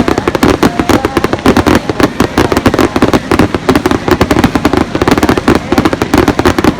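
Aerial fireworks going off in a rapid barrage: dense, overlapping bangs, many a second, without a break.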